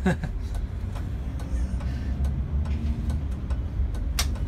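City bus engine with a steady low drone as the bus pulls away from traffic lights, heard from inside the bus, with light scattered ticks and one sharp click about four seconds in.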